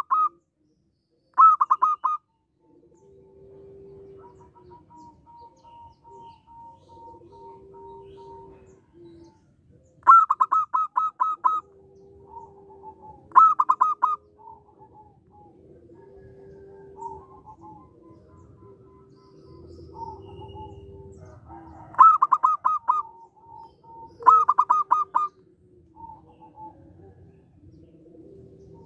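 Zebra doves (perkutut) calling. Several loud bursts of quick, clear staccato notes stand out against softer, lower, drawn-out cooing notes in between.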